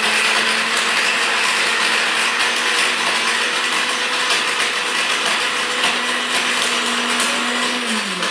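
Electric mixer grinder with a small steel jar running at full speed: a loud, steady whir with a steady hum. Near the end the motor slows and the pitch falls.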